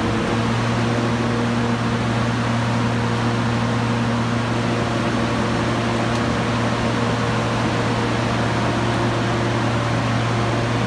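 Steady loud electric locomotive hum with an even fan-like rush: the running cooling fans and transformer of a Caledonian Sleeper Class 92.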